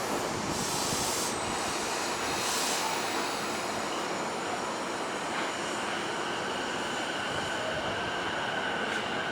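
E233-series electric train pulling out of the station over a steady rumble of wheels on rail. Two short hisses of air come in the first few seconds, and from about halfway a thin motor whine sets in and slowly rises in pitch as the train gathers speed.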